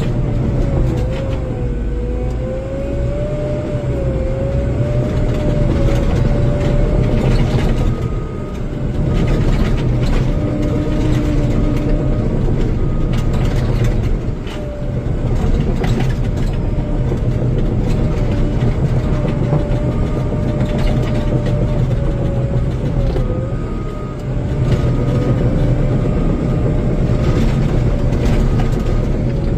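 Bulldozer's diesel engine running steadily under load, with a wavering high whine over the engine and scattered clanks.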